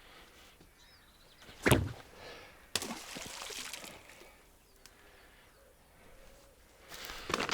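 A sharp knock just under two seconds in, then two stretches of splashing and sloshing water, one about three seconds in and one near the end, as duck decoys are handled and set out in river water.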